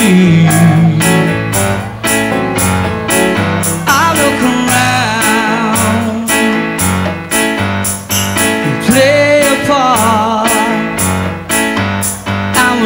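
Live soft-rock band playing: drums keep a steady beat under keyboards and guitars, with a wavering lead melody over the top.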